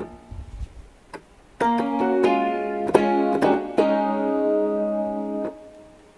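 Yamaha stage keyboard played through a ground-lifted direct box: a short chord at the start, then from about a second and a half in a few notes struck in turn and held together before stopping near the end. No USB ground-loop noise under the notes, which the owner credits to the direct box's ground lift.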